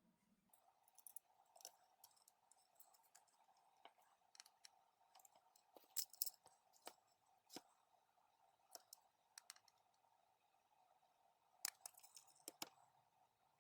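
Faint, irregular clicks and taps of small tools and parts being handled while new capacitors are fitted to a graphics card board, over a faint steady hum. A few sharper clicks stand out about six seconds in and near the end.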